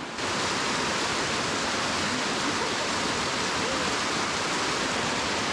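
Waterfall: a steady rush of falling water that starts abruptly just after the beginning.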